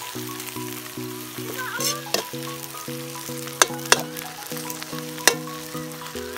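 Water spinach sizzling as it is stir-fried in a steel wok, with a few sharp clinks of the metal spatula against the pan. Background music with a steady, repeating note pattern plays underneath.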